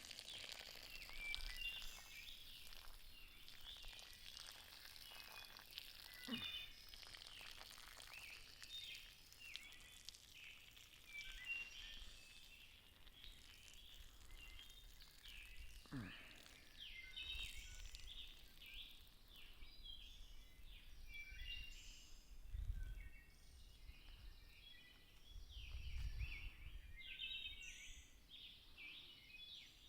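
Faint dawn chorus: many birds chirping and singing in short, overlapping calls throughout, with a low rumble twice in the second half.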